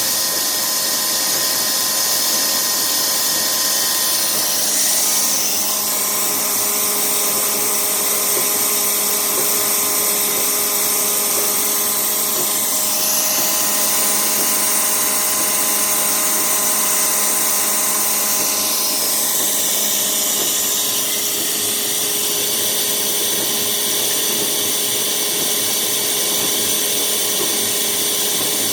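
ZJT-1500 machine running on a test with its newly replaced motor: a loud, steady motor whine made of several held tones, its upper tones shifting a few times.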